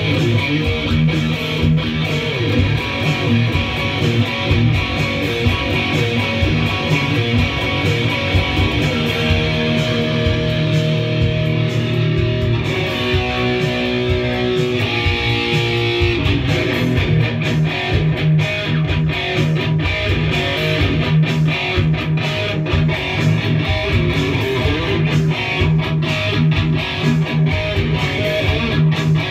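Electric guitar playing a heavy metal riff with a driving rhythm. About ten seconds in, the riff gives way to held, ringing notes for several seconds, then the driving rhythm resumes.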